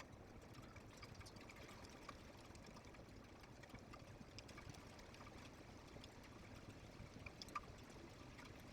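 Near silence: faint background hiss with a few scattered soft ticks.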